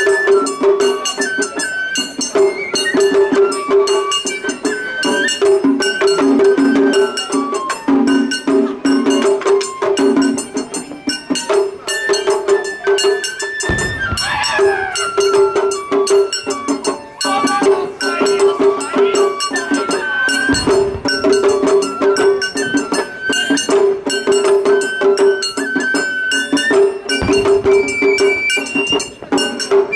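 Japanese festival hayashi music played live: a high bamboo-flute melody over fast, clattering percussion. Three deep low thuds break in about halfway, two thirds of the way in and near the end.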